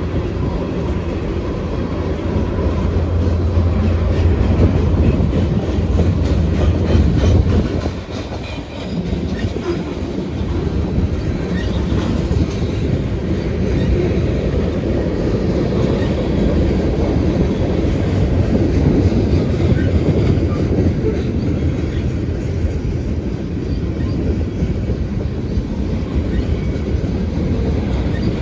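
Freight train cars rolling past close by, a steady wheel-on-rail rumble and clatter. A heavy low rumble eases off about eight seconds in, and the rolling noise carries on evenly after that.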